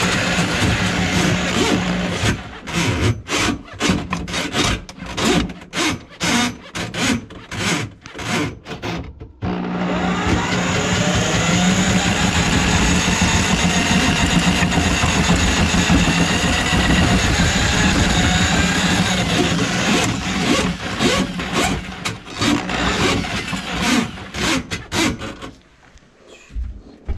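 Electric drum drain auger running as its cable works into a kitchen sink drain line plugged with grease. The motor runs steadily, then is switched on and off in quick bursts for several seconds, runs steadily again for about ten seconds, pulses again, and stops near the end.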